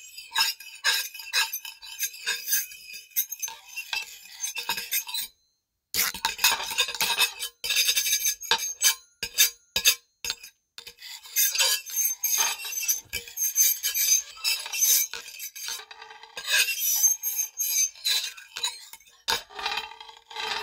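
Knife scraping across a plate in repeated strokes, giving short high-pitched squeals and clinks of metal on the dish. There is a brief silent pause about five seconds in.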